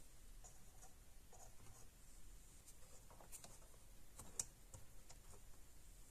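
Faint, scattered clicks and light taps of small parts being handled, the sharpest one about four and a half seconds in.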